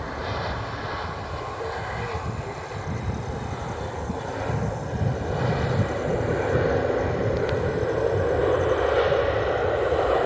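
Jet airliner's engines running on the runway, a steady roar that grows gradually louder.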